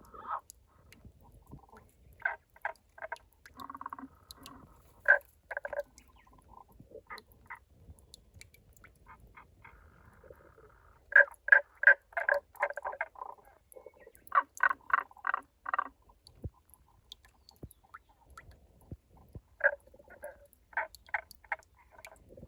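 Tago's brown frog calling from inside a rock-crevice spring: runs of short, rolling croaks at about four a second, repeated several times with short pauses between.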